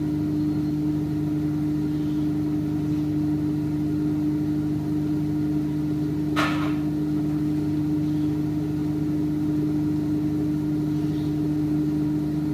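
Steady electrical hum of a kitchen appliance motor running, with one short clink about six seconds in.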